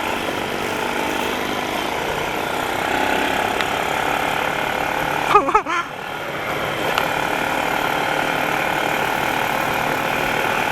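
ATV engine running steadily while being ridden. About halfway through, a brief voice cuts in for a moment.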